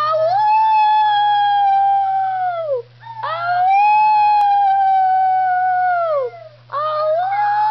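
A schnauzer howling: three long, drawn-out howls with short breaths between, each held at a fairly steady pitch and sliding down at its end.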